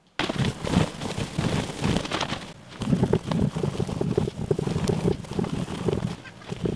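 Cotton rag rubbed briskly over a leaded stained-glass panel, buffing off dried finishing wax: a dense, scratchy rubbing that starts abruptly and swells and fades with the strokes.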